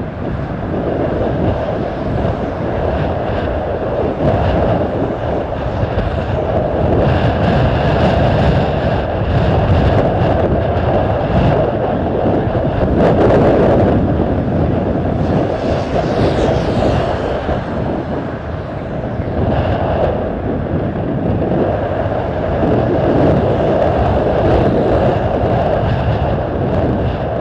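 Airbus A320's twin jet engines at takeoff thrust, a steady roar through the takeoff roll and climb-out, with strong crosswind buffeting the microphone.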